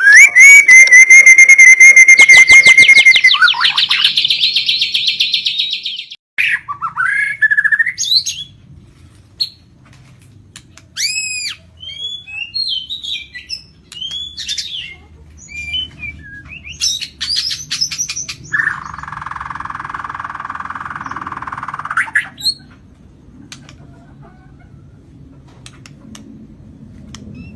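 White-rumped shama (murai batu, Lampung type) singing a varied song: it opens with a loud held whistle over a rapid trill, runs into a buzzy trill, then a string of short, separate whistled phrases, and a long buzzy rattle about two thirds of the way through.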